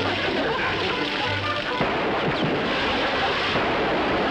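Music score playing over a steady, noisy stream of thick molasses pouring from a barrel and splattering onto a man.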